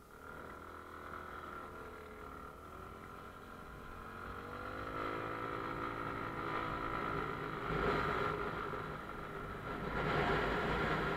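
Motorcycle engine running, then rising in pitch about four seconds in as the bike pulls away and speeds up, with rushing wind noise growing louder near the end.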